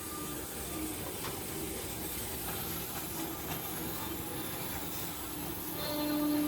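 CNC horizontal boring machine running: a steady mechanical hiss and hum with a few faint ticks, and a motor's steady tone getting louder near the end.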